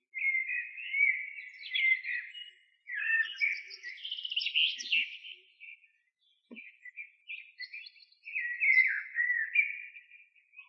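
A songbird singing loud, fast warbling phrases in three bouts, with short breaks about two and a half and six seconds in.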